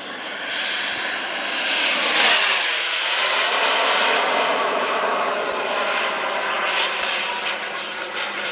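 Turbine engine of a radio-controlled model jet flying past: a jet rush and whine that swells to its loudest about two seconds in, with a sweep in its tone as it passes, then stays strong.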